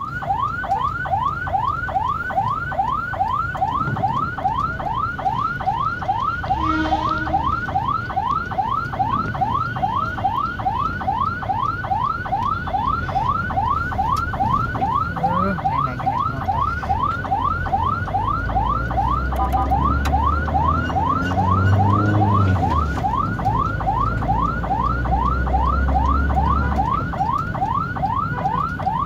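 Ambulance siren on its yelp setting: a rapid rising wail repeated about two to three times a second, heard from inside a vehicle's cabin. A low engine rumble swells under it for several seconds past the middle.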